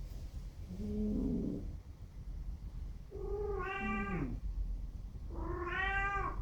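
A pet snoring in its sleep. A short low, rasping breath comes about a second in, followed by two longer, whistling, pitched snores that slide down in pitch as they end.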